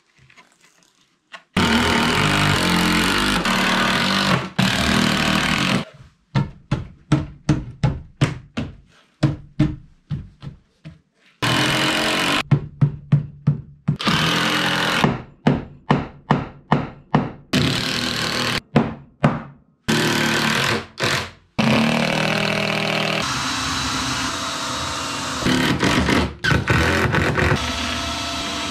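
Woodworking tools in short, abruptly cut snippets: stretches of a power tool running steadily, alternating with runs of sharp knocks about three or four a second.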